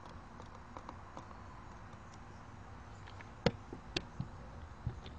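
Small sharp clicks and knocks of hand tools and hardware being handled: a few faint ticks, then a handful of louder clicks from about three and a half seconds in, over a low steady hum.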